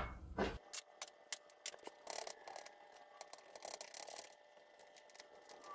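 Small glass bowls and a glass clinking and scraping as measured dry seasonings are tipped together and stirred: a brief louder bump right at the start, then a run of faint light ticks with faint glass ringing.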